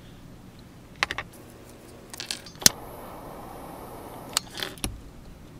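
Light clicks and taps of small metal craft tools against a steel ruler on a wooden board, the loudest a single sharp click midway. After it a metal palette knife scrapes along the ruler for about a second and a half, then a few more taps.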